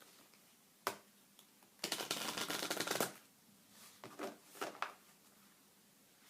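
Deck of tarot cards being shuffled by hand: one sharp card snap about a second in, then a rapid run of cards flicking past each other for about a second, followed by a few shorter card flicks and taps.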